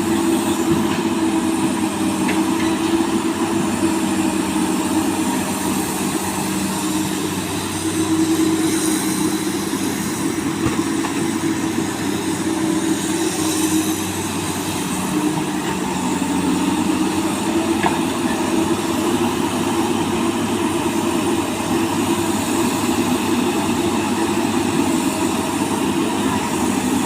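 Komatsu PC200 hydraulic excavator's diesel engine running steadily while digging, its note sagging and then climbing back about halfway through.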